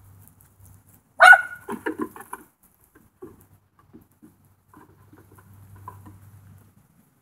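A single sharp dog bark about a second in, followed by a quick run of hollow knocks and then scattered light taps as goats' hooves step and hop on a corrugated plastic culvert pipe.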